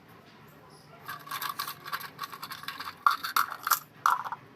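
Hair scratching and rustling as it is worked by hand close to the microphone, in quick rough strokes starting about a second in and loudest near the end.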